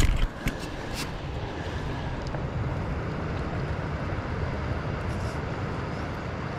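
Steady low rumbling outdoor noise, with a knock and a few sharp clicks in the first second.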